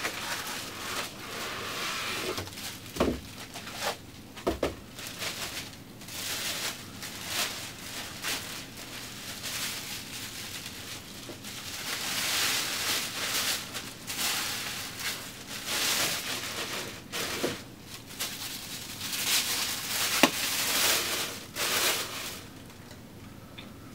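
Plastic wrapping and foam packing crinkling and rustling as a telescope tube is lifted out of its box and unwrapped, with a few light knocks about three and four and a half seconds in.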